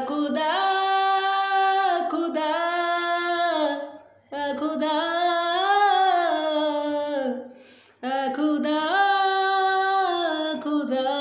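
A man singing a cappella: three long held vowel phrases, each bending up and falling in pitch, with a short breath between them.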